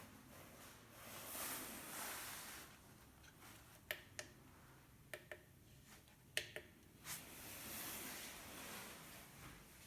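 A few short, sharp clicks and taps, several in close pairs, over faint hiss.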